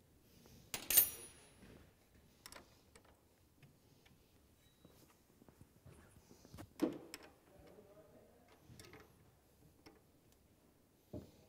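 Scattered clicks and knocks of metal parts and tools being handled. A sharp clink with a brief metallic ring comes about a second in, and a duller knock near seven seconds.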